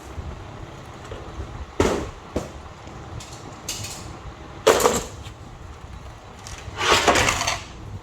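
Tools and car parts being moved and set down: separate hard knocks and clanks about two seconds in and near five seconds, then a longer rattling clatter around seven seconds.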